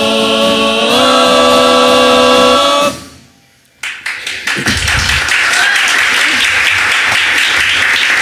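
Murga chorus holding a final unaccompanied sung chord that steps up in pitch about a second in and is cut off together just before the third second. After a brief silence, audience applause and cheering.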